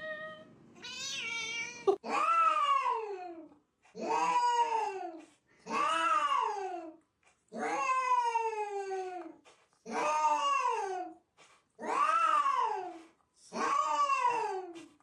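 Cat meowing over and over: about eight long, drawn-out meows roughly every two seconds, each rising briefly and then falling in pitch.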